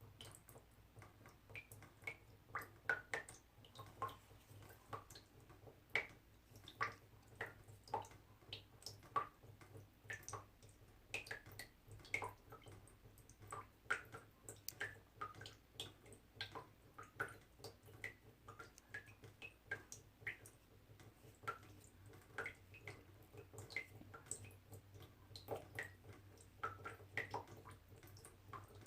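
Small water droplets dripping one at a time into water, each a short, high plink at a slightly different pitch, falling irregularly about two to four times a second over a faint low hum.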